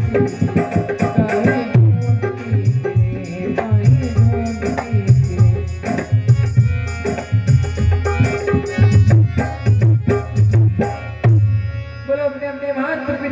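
Instrumental interlude of a Rajasthani devotional bhajan: fast hand-drum strokes over held melodic tones. The drumming stops about 11 seconds in, leaving the sustained melody.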